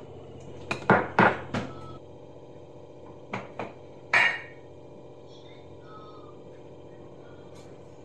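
Kitchen clatter: several sharp knocks and clinks of jars and containers being handled and set down on a countertop, in a cluster about a second in and again around three to four seconds in, the last one ringing. A steady low hum runs underneath.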